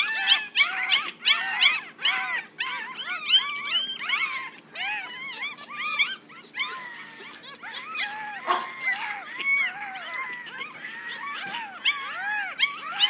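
A litter of one-week-old Yorkshire terrier puppies squeaking and whimpering. Many short cries that rise and fall in pitch come from several pups at once, a few every second, overlapping.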